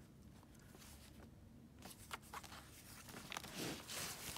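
Faint paper handling: soft rustles and small taps as hands lift and move a card and pages of a handmade paper journal, with the rustling picking up in the second half.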